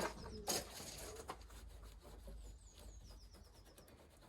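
Faint handling sounds of the Land Rover's bulkhead flap and seal being worked on by hand: a few sharp knocks in the first second and a half, then light ticking and rubbing. A small bird chirps twice in the background, each time a short run of quick falling notes.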